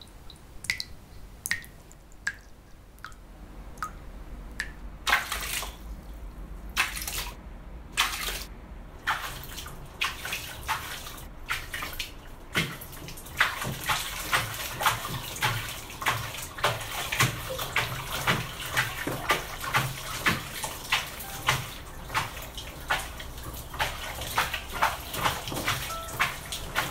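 Water dripping from a tap into a plastic basin, single drops a little under a second apart. Then water splashing and sloshing in the basin, settling into a regular splash about twice a second as clothes or dishes are washed by hand.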